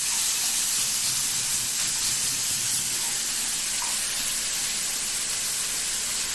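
Chuck eye steaks sizzling in a hot stainless steel skillet, a steady high hiss of searing just after being flipped.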